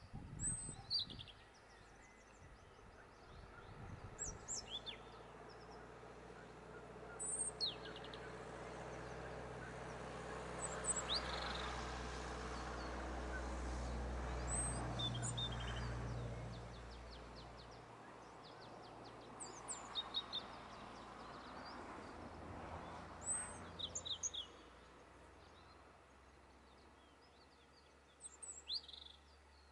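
European robin singing: short phrases of thin, high, quick warbling notes, separated by pauses of a few seconds. A low background rumble swells and fades midway.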